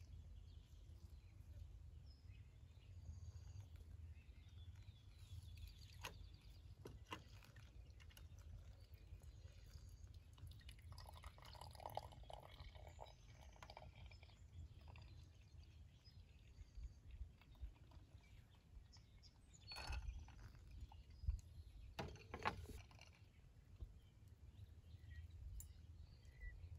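Faint trickle of hot water poured from a gooseneck kettle onto coffee grounds in a paper-filtered pour-over dripper, with coffee dripping into the carafe below. A couple of light knocks come about three quarters of the way through.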